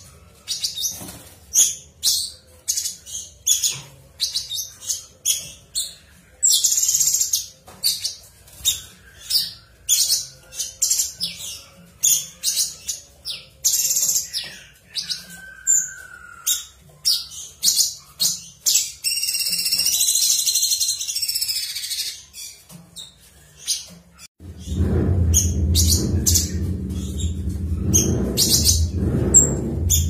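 Cucak cungkok (a leafbird) singing in a cage: a string of short, sharp high notes, about two a second, running into faster, denser twittering about halfway through. About five seconds before the end a loud low rumble comes in under the song.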